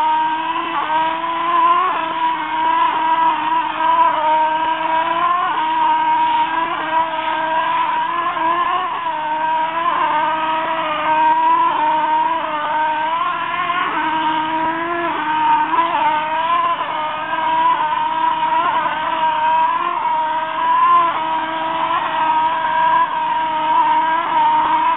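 Motor-driven stucco spraying rig running steadily under load. It gives a continuous whine whose pitch dips briefly and recovers every few seconds.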